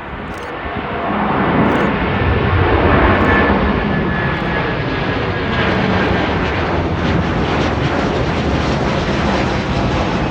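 Airbus A330-243's twin Rolls-Royce Trent 700 turbofans at takeoff power: a loud jet roar that swells over the first two seconds and then holds steady, with a faint high whine on top.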